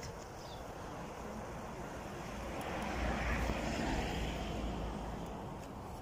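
Rushing noise of a passing vehicle, swelling from about two seconds in to a peak near the middle and fading again toward the end.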